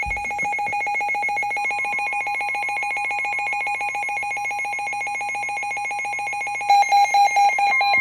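Weather alert radio sounding its electronic warning alarm for a severe thunderstorm warning: a fast-pulsing, high beeping tone. Near the end it switches to a louder, choppier beeping pattern.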